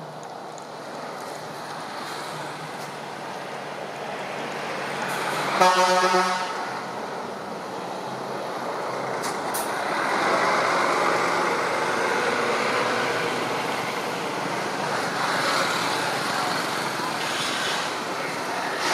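Road traffic with one short vehicle horn toot about six seconds in; the traffic noise grows louder from about ten seconds.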